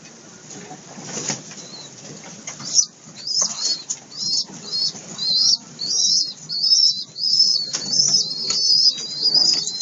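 Pigeons' wings flapping and scuffling in a wooden loft, in short sharp strikes. From about three seconds in, a run of short high-pitched chirps, roughly two a second, plays over it.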